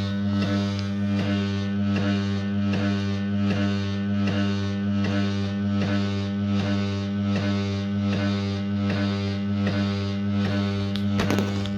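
Lyrec SV2 cutting lathe turntable running with a loud steady electrical hum and a regular tick about three times a second. A sharper click comes near the end.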